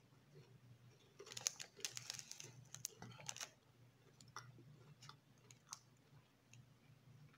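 A person chewing chocolate with the mouth closed: quiet wet mouth clicks and crackles, busiest from about one to three and a half seconds in, then only an occasional click. A faint steady low hum lies underneath.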